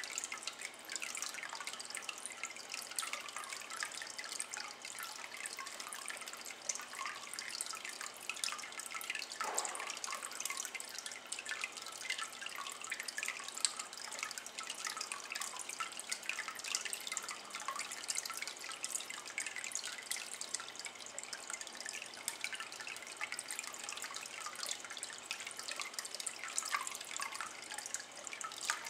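A thin stream of water trickling into a shallow ceramic basin of water: a steady patter of small drips and splashes, with one deeper plop about a third of the way through.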